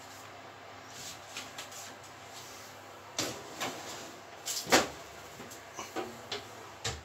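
A run of knocks and clunks, the loudest a little before five seconds in: a metal baking tray being put into an oven and the oven door being shut.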